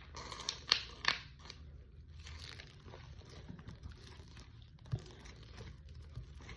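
Hands kneading and pulling sticky homemade glue slime, with a few sharp sticky pops and crackles in the first second or so, then quieter squishing. A short knock about five seconds in.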